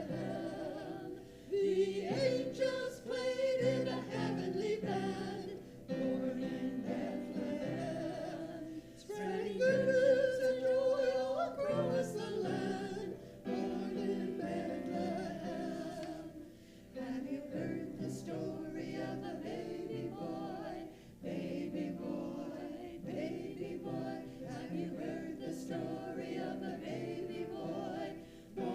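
A choir singing together in phrases of a few seconds, with brief breaks between the phrases.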